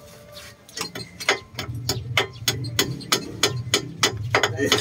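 Ratchet wrench clicking steadily, about four clicks a second, starting about a second in, over a low hum.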